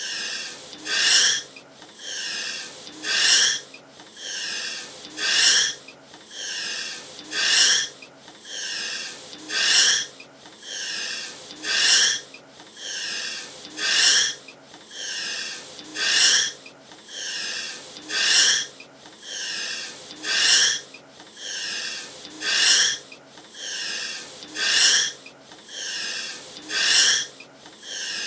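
A person breathing hard through the mouth in a steady rhythm: a short, loud breath alternates with a longer, softer one, about one breath a second.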